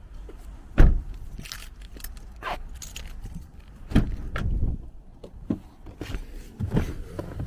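Knocks, clicks and thumps of someone moving around in a car, with a loud thump about a second in and another few about four seconds in.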